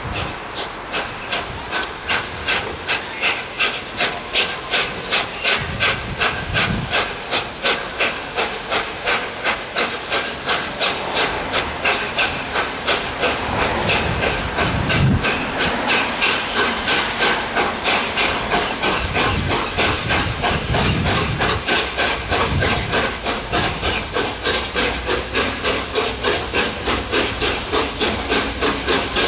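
Steam locomotive 60019 'Bittern', an LNER A4 three-cylinder Pacific, working hard as it pulls away with its train: a fast, even chuffing of exhaust beats over a steady steam hiss, the beats quickening slightly as it gathers speed.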